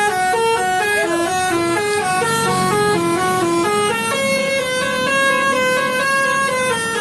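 Indonesian 'telolet' bus horn, a multi-trumpet air horn, playing a quick tune. Several notes sound together and step up and down a few times a second, with some notes held longer in the middle.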